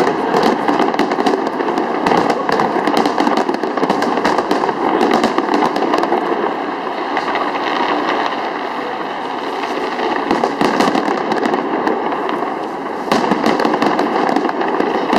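Aerial fireworks going off in a dense, continuous stream of crackles and bangs, easing a little past the middle and picking up again near the end.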